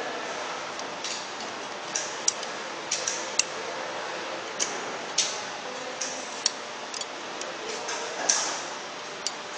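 Irregular small metallic clicks and taps as a hex key and screws are worked on the aluminium cover of a vacuum pump, over a steady hiss.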